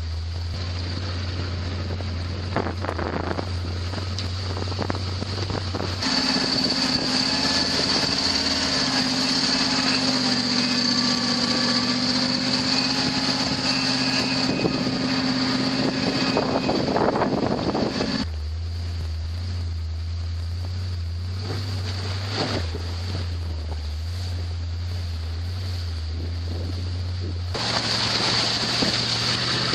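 Off-road vehicle engine droning steadily while driving a snowy trail, heard from in the vehicle with wind rumbling on the microphone. The drone shifts abruptly in pitch and loudness about six seconds in, again around eighteen seconds, and near the end.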